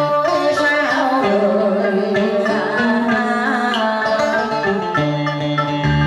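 Southern Vietnamese cải lương singing in the đờn ca tài tử style: a woman's voice with sliding, ornamented notes over plucked-string accompaniment.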